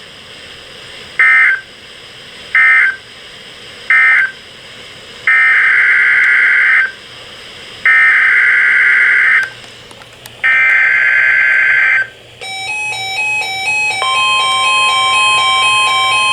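NOAA Weather Radio EAS digital data bursts: three short screeching bursts of the end-of-message code, then three longer SAME header bursts announcing the next tornado watch message. About three-quarters of the way through, a repeating electronic alert melody starts, and the steady 1050 Hz warning alarm tone joins it shortly after.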